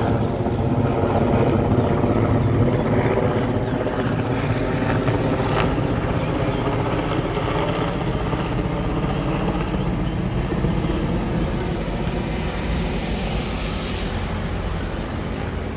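Large firefighting helicopter flying overhead with a water bucket slung beneath it, its rotor and engine noise steady and loud at first, then slowly fading as it moves away.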